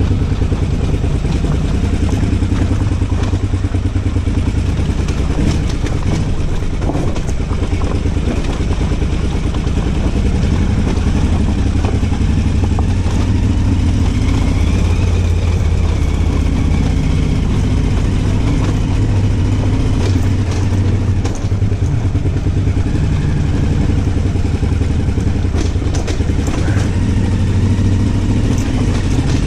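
990 motorcycle's engine running steadily while riding, a constant low drone with little change in pitch.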